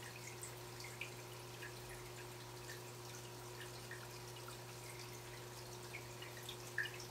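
Aquarium water gurgling and dripping: small irregular plinks and drips at the water surface over a steady low hum, with one louder plink near the end.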